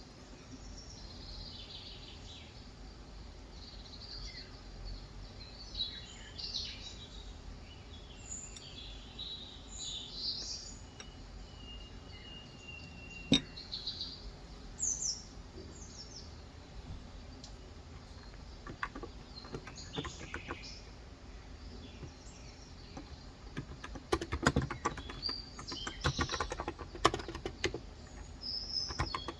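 Small birds chirping and tweeting outside in scattered short calls over a steady background hiss of rain. A single keystroke sounds about halfway through, and typing on a Cox Endeavour electro-capacitive keyboard resumes near the end.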